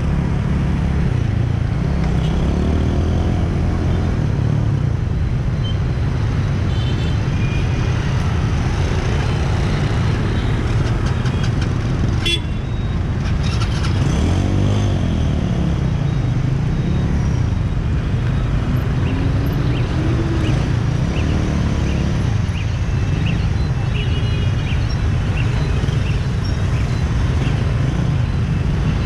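Motorbike engine running under a steady low rumble while riding through dense city traffic, its pitch rising and falling several times as it speeds up and slows. Short horn toots from surrounding traffic sound now and then, a few of them near the end, and there is one sharp click about halfway through.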